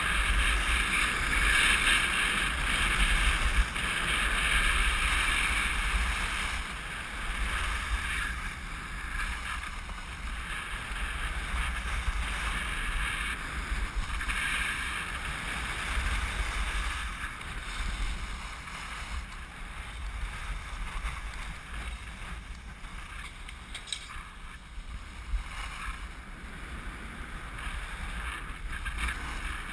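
Wind rushing over the microphone of a skier's action camera on the move, with the steady hiss of skis sliding and carving on packed snow.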